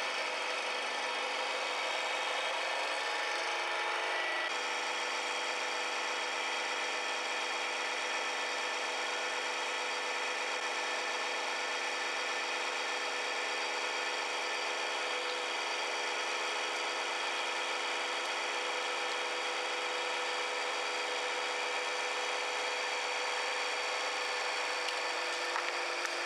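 Hydraulic press's motor and pump running with a steady, even hum as the ram slowly presses down on a plastic Tic Tac box. A few faint cracks near the end as the box gives way.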